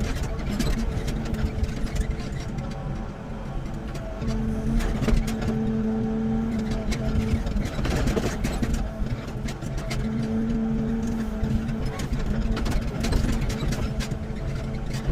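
Excavator's diesel engine running under load, with a steady tone that comes in long stretches and drops out between them, and scattered knocks and clanks from the machine digging.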